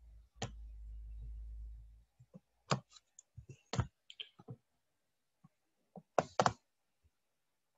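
Scattered sharp clicks of a computer mouse and keyboard, about a dozen in small groups, as parts of a mesh are selected in Blender. A low hum runs under them for the first two seconds.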